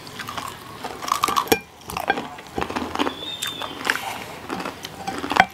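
Fried chicken being eaten by hand close to a table microphone: crisp crunching bites and chewing, with scattered sharp clicks, the strongest about a second and a half in and at the very end.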